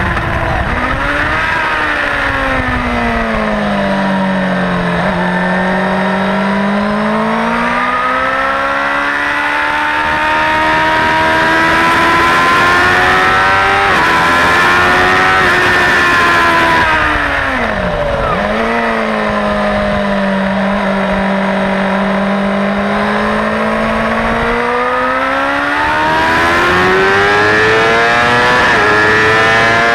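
Suzuki GSX-R600 K4's inline-four engine on a track lap with wind rushing past: the revs fall and hold low through a corner, then climb through the gears with a brief dip at a shift; about 17 seconds in they drop sharply on a downshift, hold low, and rise again under acceleration near the end.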